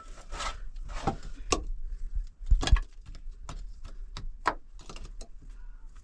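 Irregular knocks and scrapes from building materials being handled and pulled into place, with two heavy thumps about two and a half seconds in.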